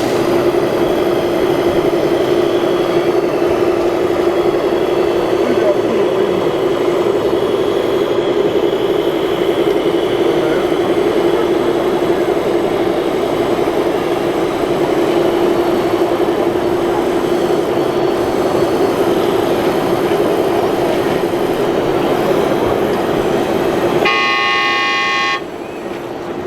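Steady electric whine of radio-controlled model machinery running, with voices murmuring in the background. About 24 seconds in a horn sounds once for a little over a second, then the sound cuts off abruptly.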